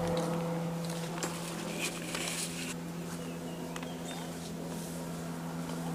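Footsteps and brushing through woodland undergrowth, with scattered clicks and a short rustle about two seconds in, over a steady low hum.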